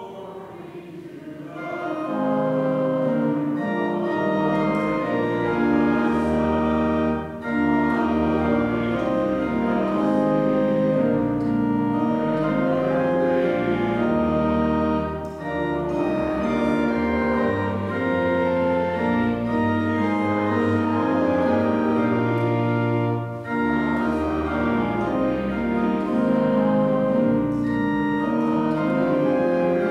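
Pipe or electronic church organ playing in held chords, starting softly and rising after about two seconds, with short breaks between phrases about every eight seconds.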